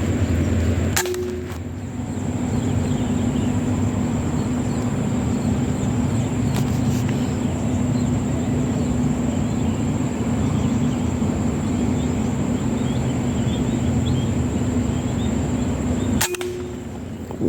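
Two sharp air-rifle shots, about a second in and again near the end, each with a short ringing clang after the crack, over a steady low hum.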